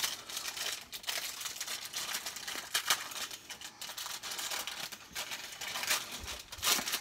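Plastic wrapper crinkling and rustling in irregular crackles as a store-bought pie crust is unwrapped by hand.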